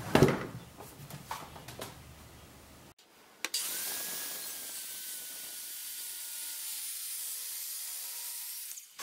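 A sharp knock and some handling of the wood, then, from about three and a half seconds in, a hand-held circular saw cutting a kerf into a maple log. The cut is a steady hiss of the blade through the wood, with faint falling tones, and it cuts off suddenly near the end.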